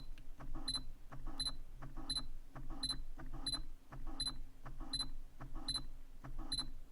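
Sony G Master 85mm f/1.4 lens autofocusing over and over: its focus motor gives off a pulsing buzz with clicks, and a short high beep sounds about every 0.7 s, about ten times. The owner calls it a weird noise and suspects the lens is faulty or needs a firmware update.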